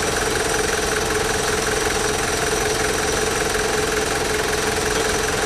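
Pickup truck engine idling steadily, its sump freshly refilled with oil.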